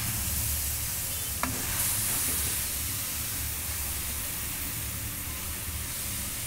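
Grated carrots sizzling steadily in hot melted ghee in a metal kadhai over a high gas flame, stirred with a metal spatula, with a single light tap about one and a half seconds in.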